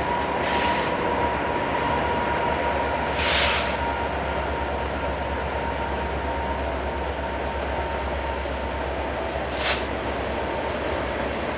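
A train passing on nearby tracks: a steady rolling rumble of the rail cars with a thin continuous whine. Three short hissing surges come through, near the start, about three seconds in and near the end.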